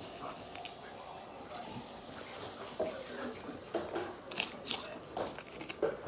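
Close-up eating sounds: bites into hamburgers and chewing, with irregular soft clicks and crunches that come more often in the second half.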